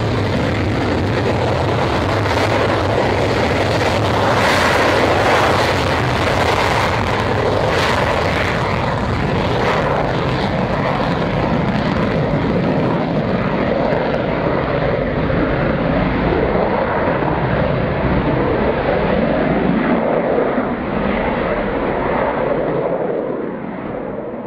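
Saab Gripen single-engine fighter jet taking off in afterburner: a loud jet roar with the crackling rasp of afterburner nozzle jack. The roar loses its high end as the jet climbs away and fades near the end.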